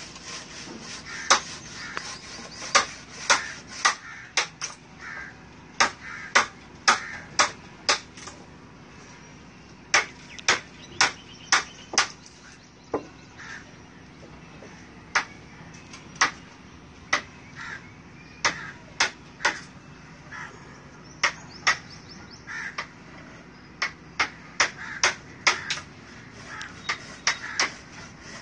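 A string of sharp clicks or knocks, about two a second in runs of three to six with pauses between runs, over a faint steady hiss.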